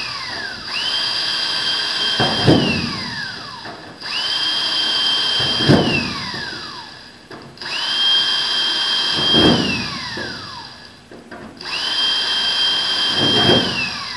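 Cordless Milwaukee drill boring holes through a template plate into the 15AC wing's aluminium skin. The motor whines up to a steady pitch, runs for about two seconds with the bit grinding into the metal, then winds down as the trigger is let go. This happens four times over.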